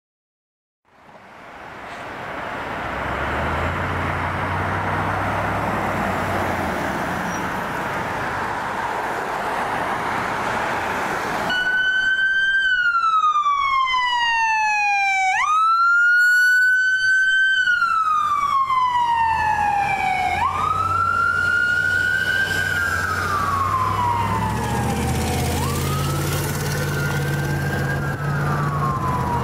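Fire department siren passing on a street: after a spell of traffic noise, a loud siren comes in about a third of the way through, each cycle sliding slowly down in pitch and then jumping quickly back up. Near the end a second siren overlaps it over the low rumble of a heavy engine as more apparatus approaches.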